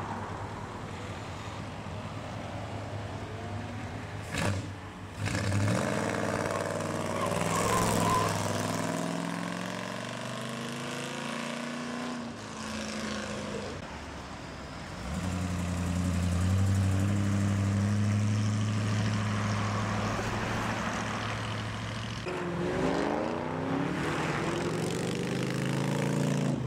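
A line of classic and modern cars drives past one after another as they pull away, among them an early-1970s Plymouth muscle car and a late-1930s Ford pickup. The engine notes rise as the cars pull off, and the loudest pass comes about halfway through.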